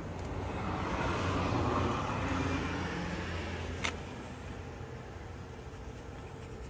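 A car passing by: its road noise swells over the first two seconds and then fades away. A single sharp click comes just under four seconds in.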